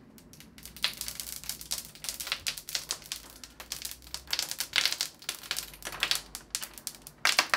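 Protective plastic film being peeled off a new TV screen, crackling and crinkling in irregular bursts.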